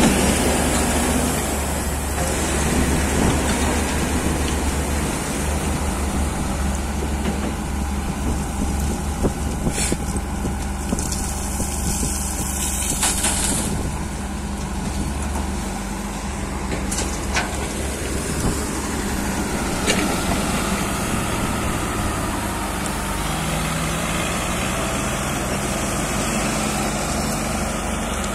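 Heavy diesel machinery running steadily: a Caterpillar 120H motor grader's engine close by and a backhoe loader working. A few sharp knocks come through, and the engine note shifts about three-quarters of the way through.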